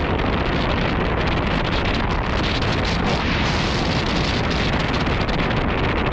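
Wind rushing over the microphone of a camera on a mountain bike or rider during a fast descent, with dense rattling from the bike over rough trail.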